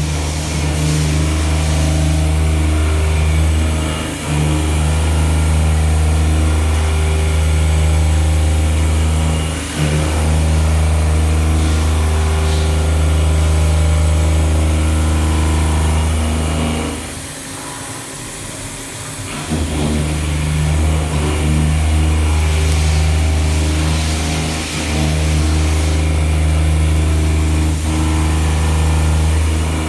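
CNC milling machine running a pocket-milling cut: a steady low machine hum with overtones. It dips briefly a few times and drops much quieter for about two seconds just past the middle.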